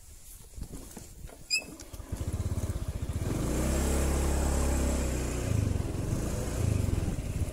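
Honda automatic scooter's single-cylinder engine starting up about two seconds in, then revving up as the scooter pulls away and running steadily.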